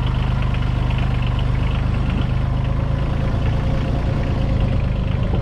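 Motorcycle engine running steadily at low revs as the bike rolls along a rough dirt track. Its steady note loosens a little near the end.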